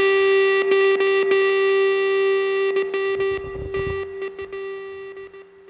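Rock music on a distorted electric guitar: the last held note rings on and slowly fades away.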